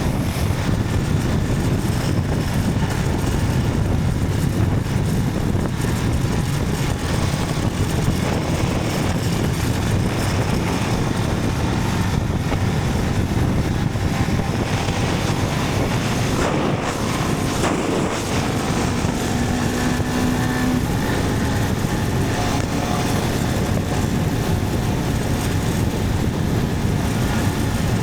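Motorcycle riding along at a steady speed, engine and road noise running evenly throughout.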